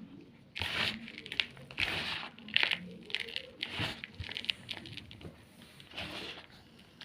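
Block of gym chalk crunching as it is crushed: a run of irregular, crackly crunches for about four seconds, a pause, then one more crunch near the end.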